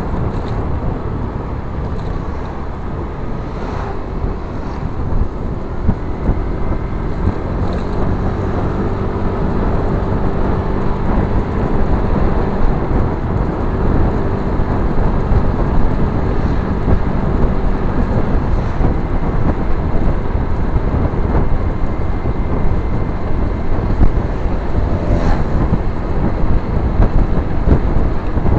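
Riding a motorbike at speed: heavy wind rumble on the handlebar camera's microphone, with the bike's steady engine hum underneath.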